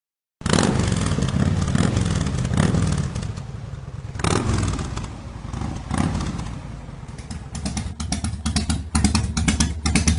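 Harley-Davidson motorcycle's V-twin engine running, cutting in suddenly and swelling in level a few times as it is revved. Near the end it turns into a rapid, even pulsing.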